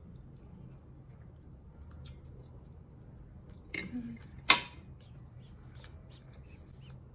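A metal fork set down on a ceramic dinner plate: two sharp clinks close together about four seconds in, the second the louder, over a low steady room hum.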